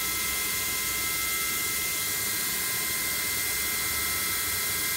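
Chevalier QP2033-L CNC vertical machining center running a program: a steady hiss with several steady high whining tones, very quiet for a machine of its kind.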